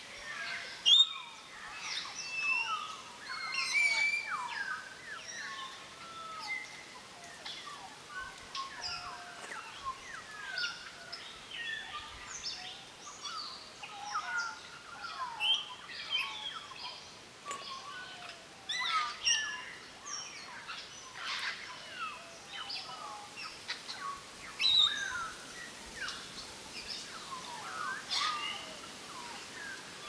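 A flock of African grey parrots calling together: a continuous chatter of short whistles and squawks, many of them gliding up or down in pitch, with now and then a louder call, the loudest about a second in.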